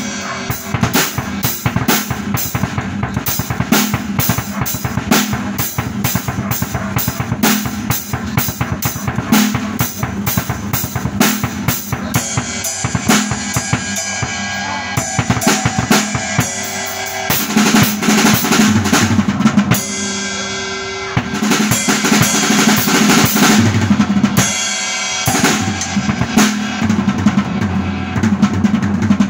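Acoustic drum kit played with sticks as a practice exercise: an even run of strokes for about the first twelve seconds, then busier passages with a high ringing wash over the drums.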